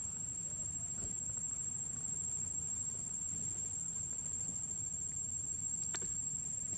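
A steady high-pitched whine over a low, even background rumble, with a single click about six seconds in.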